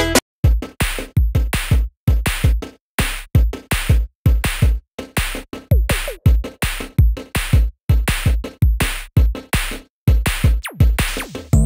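Background music: an electronic beat of drum-machine kicks and sharp hits, about two to three a second, with deep bass.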